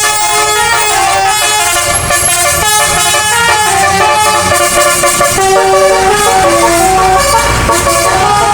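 Bus telolet musical air horn playing a quick multi-note tune, several horn tones sounding together and stepping from note to note every fraction of a second; it cuts in suddenly at the start.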